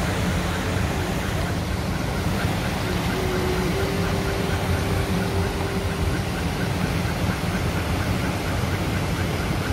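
Steady rumbling rush heard from inside a car: muddy flash-flood water pouring across the road, over the low hum of the car's own engine running, with a faint regular ticking.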